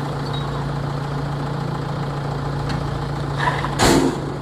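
Heavy machine's diesel engine running steadily at a low hum. Near the end a short, loud burst of noise cuts across it, with a smaller one just before.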